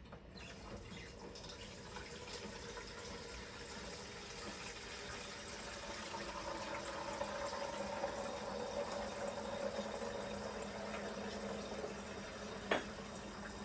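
Geberit concealed cistern filling for the first time through its inlet valve: water running into the tank, a steady hiss that builds over the first few seconds and then holds. A single sharp knock comes near the end.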